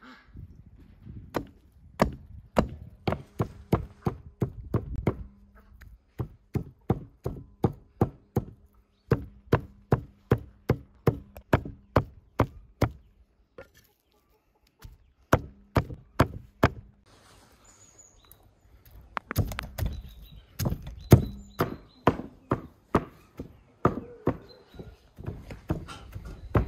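Raw meat being chopped small with a large knife on a wooden stump block: a run of sharp knocks, about two to three a second, with a short pause partway through.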